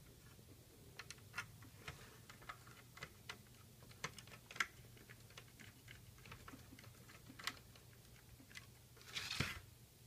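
Scattered light clicks and taps from a BMW E46 CD53 radio's metal chassis and parts being handled, then a brief, louder shuffling noise about nine seconds in as the unit is turned over.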